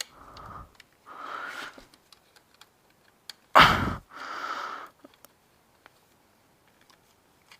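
A person breathing and sniffing through the nose while working, with a louder, sharper breath about three and a half seconds in. Scattered faint clicks come from handling the wire and parts.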